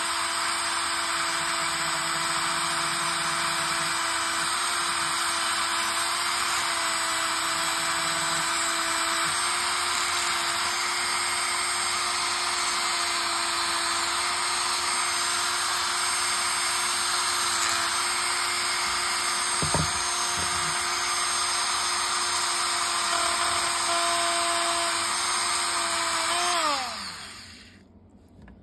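Small cordless rotary tool with a cut-off wheel running at a steady high whine, grinding through the plastic housing of a sensor. Near the end it is switched off and its pitch falls as it winds down to a stop.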